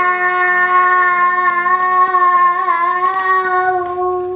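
A child's voice singing one long held note, loud and steady, that cuts off abruptly at the end.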